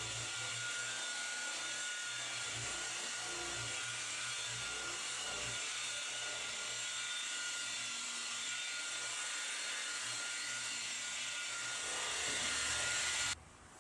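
Electric buffer running steadily on car paint, a whirring hiss with a thin whine and a pulsing low hum, switched off abruptly near the end.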